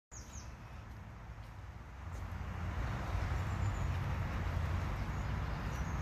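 Outdoor ambience: a steady low rumble and hiss that grows louder about two seconds in, with a few faint, high bird chirps near the start and near the end.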